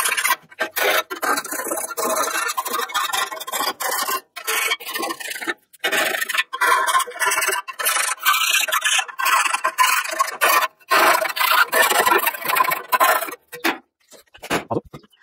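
Hand file rasping in quick back-and-forth strokes against the edges of a rectangular cutout in a sheet-metal plate, squaring and enlarging the opening. The strokes stop about 13 seconds in.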